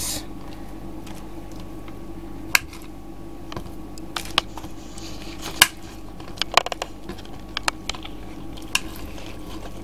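Light clicks and taps of kitchen items being handled and set down, scattered about once a second, over a steady low hum.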